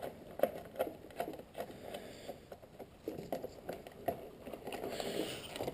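Faint scattered clicks and rustling of hands handling wiring and small parts in an engine bay.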